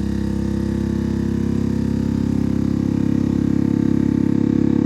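Avid Armor USV20 chamber vacuum sealer's pump running steadily, drawing the vacuum in the chamber, a low hum that grows slowly louder.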